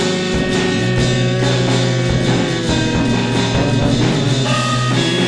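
Instrumental rock music: guitar with a drum kit keeping a steady beat, with no singing.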